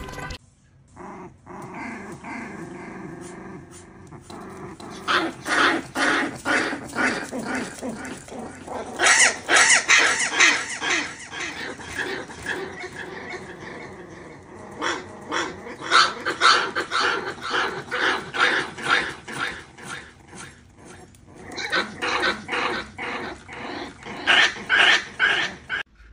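A puppy barking and growling, short yaps coming in quick runs of several a second with a couple of brief pauses.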